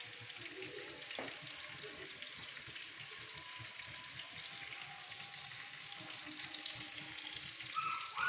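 Pieces of liver sizzling and crackling steadily as they fry in hot oil in a pan, with a brief, louder sharp sound near the end.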